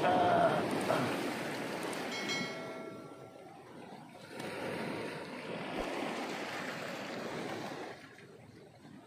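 Sea surf washing against a rocky shore, a steady rushing noise that eases off near the end, with a brief high-pitched tone about two seconds in.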